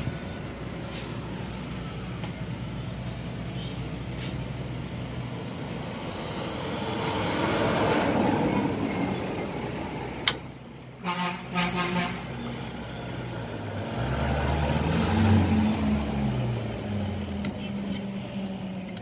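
Passing road traffic. One vehicle swells past about eight seconds in, a horn gives several short toots around eleven seconds, and a heavier engine passes from about fourteen seconds on with its pitch shifting.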